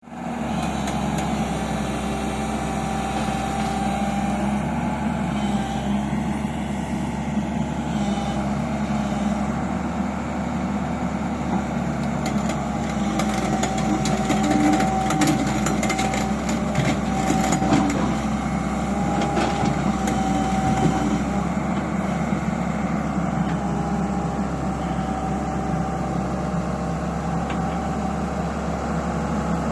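Heavy diesel engine running steadily, with a spell of clicks and clanks about halfway through.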